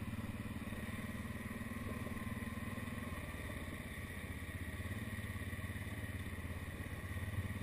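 ATV engine running steadily at low trail speed, with rapid even exhaust pulses. It eases off slightly about halfway through and picks up again near the end.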